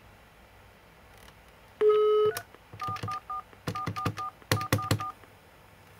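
Dial tone from a corded desk telephone handset, heard briefly about two seconds in. It is followed by about ten quick touch-tone (DTMF) beeps in three short runs as the number keys are pressed, each with a plastic button click.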